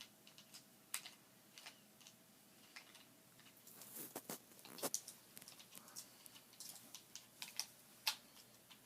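Faint, scattered clicks and light taps of toy screws and nuts being handled and fitted, getting busier about halfway through.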